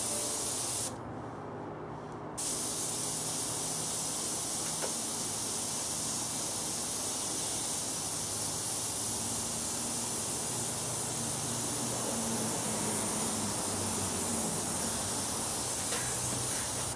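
Hose-fed compressed-air paint spray gun spraying paint in a steady hiss. It stops for about a second and a half shortly after the start, then runs on unbroken.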